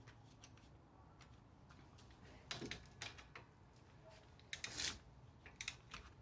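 Faint scattered metallic clicks and a brief clatter of hand tools as a torque wrench is worked on the brake caliper bracket bolts.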